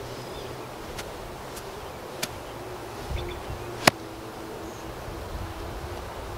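A golf club swung at a ball on fairway grass, with one sharp click at the strike just before four seconds in. A few fainter ticks come earlier, and a faint steady hum runs under the second half.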